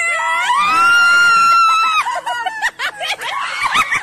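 A person's long, high-pitched scream that rises and is held for about two seconds, then breaks off into short excited voice sounds.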